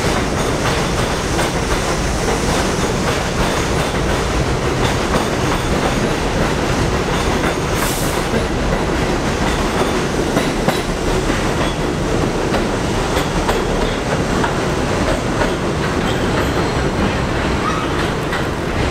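R62A subway train running on elevated track: a steady loud rumble of steel wheels on rail with a clickety-clack over the rail joints. A short hiss comes about eight seconds in.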